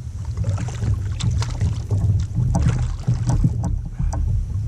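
Water splashing and lapping against a kayak hull, with irregular small splashes and knocks over a low wind rumble on the microphone.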